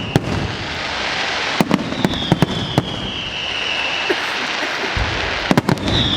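Fireworks display: sharp bangs of shells bursting, over a continuous crackle, with a high whistling firework whose pitch slowly falls for about two seconds in the middle and another whistle starting near the end.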